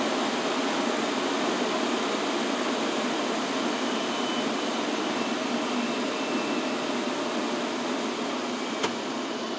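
Car wash air dryer blowers, a steady rush of air heard from inside the car that slowly fades, with a single click near the end.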